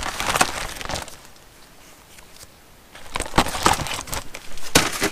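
Clear plastic parts bag holding gaskets and O-rings crinkling as it is handled, in two spells with a quieter gap of about two seconds between.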